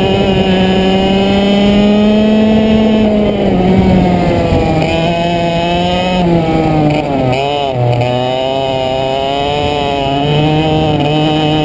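100cc two-stroke go-kart engine heard onboard at high revs. Its pitch falls about three and a half seconds in as the throttle comes off, drops lowest and wavers around seven to eight seconds in, then climbs back near the end as it accelerates again.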